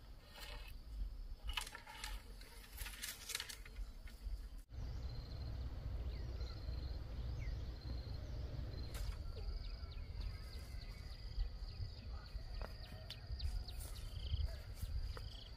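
Outdoor ambience: insects keep up a steady high-pitched drone over a low rumble, with scattered light clicks and crackles. About a third of the way in the sound changes abruptly and the rumble grows louder.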